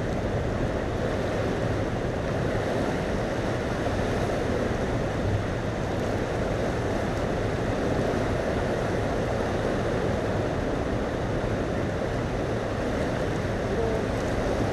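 Steady rushing noise of turbulent river water below a dam, with wind on the microphone.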